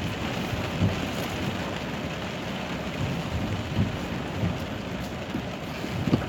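Heavy rain pouring down in a thunderstorm, a steady dense hiss, with a sharp knock near the end.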